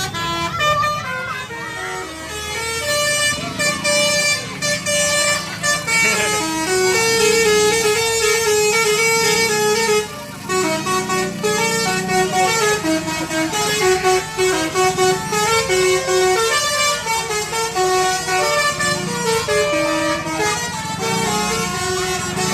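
Basuri musical bus horns playing fast stepped melodies, note after note, with a short break about ten seconds in.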